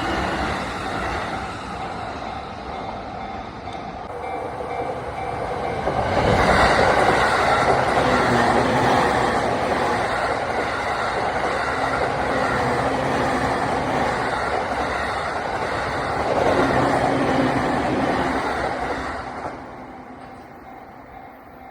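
JR East E231/E233-series electric commuter train passing, its wheels and running gear loud from about six seconds in for some thirteen seconds before the noise falls away near the end.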